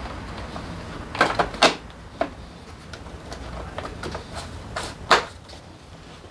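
A few sharp clicks and knocks: three in quick succession about a second in, one more shortly after, and a single louder one about five seconds in.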